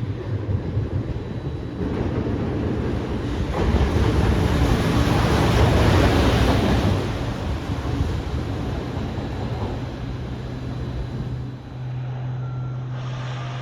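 An EF210 electric locomotive running light past the track, with the rumble of its wheels on the rails swelling to a peak mid-way and then fading.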